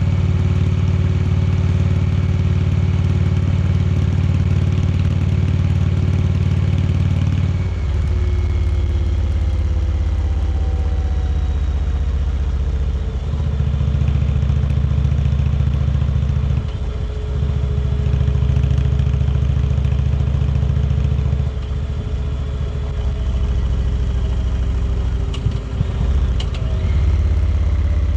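Indian Chieftain Darkhorse's V-twin engine running under way. A steady, deep note drops off and picks up again several times, as the throttle is eased and reopened.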